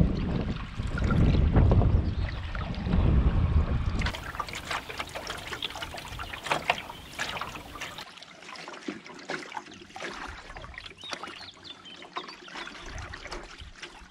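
Low wind rumble on the microphone for the first few seconds, then a wooden canoe paddle dipping into the water: splashes on each stroke, and water dripping and trickling off the blade between strokes.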